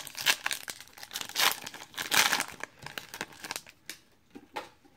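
Foil wrapper of a trading-card pack being torn open and crinkled: a run of crackling rustles that dies down about three and a half seconds in, with a few faint clicks after.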